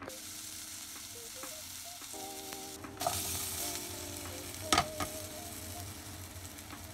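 Diced raw potatoes tipped from a plastic colander into a pot of hot oil, sizzling as they fry. The sizzle grows louder about three seconds in, and there are two sharp knocks a little later.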